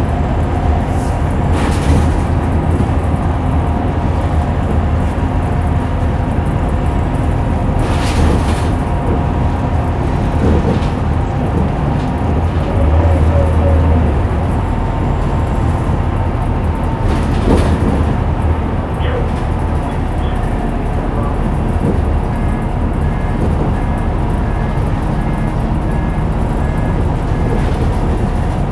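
Scania L94UB bus with a ZF automatic gearbox running, heard from on board: a steady low engine drone with a steady driveline whine over it. There are three short hisses along the way and a run of short regular beeps near the end.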